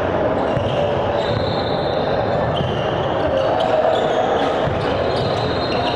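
Basketball game play on a hardwood gym floor: the ball bouncing, with short high sneaker squeaks, echoing in a large gym.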